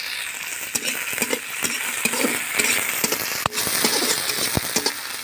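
Chopped tomatoes and onions sizzling in hot oil in an aluminium kadhai, stirred with a steel spatula that scrapes and clinks against the pan. A couple of sharper clinks in the second half.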